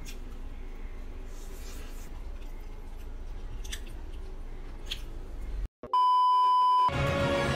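Faint room noise with a few soft clicks, cut off abruptly; then a loud electronic beep at one steady pitch lasting about a second, followed by music starting near the end.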